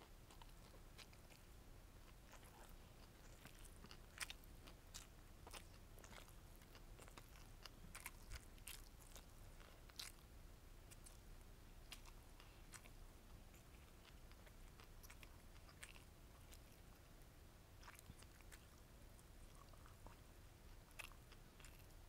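A person faintly chewing and biting beef bulgogi gimbap (rice and seaweed roll with crunchy vegetables, egg and beef) close to the microphone: soft, irregular crunches and small mouth clicks.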